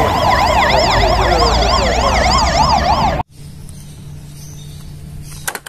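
Fire engine sirens yelping in fast rising-and-falling sweeps, several a second, over a low engine rumble; the sound cuts off abruptly about three seconds in. After that, a faint steady hum and a few light clicks near the end.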